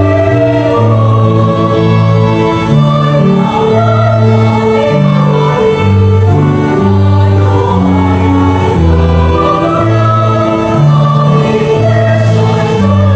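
A mixed choir singing a gospel song in long held notes, over a slow, steady bass line that moves note by note.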